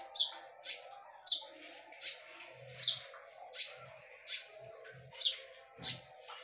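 Konin songbird giving short, sharp, loud chirps, about nine in a steady series at roughly one every three-quarters of a second, over a faint steady background hum.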